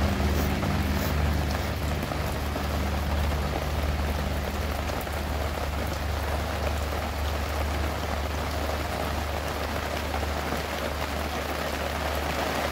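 Steady, even rushing noise like rain, with a low hum under it that fades out over the first few seconds.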